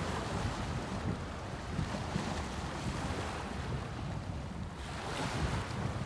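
Sea waves breaking and washing against the rocks of a breakwater, with a surge of surf near the start and another near the end, over the rumble of wind buffeting the microphone.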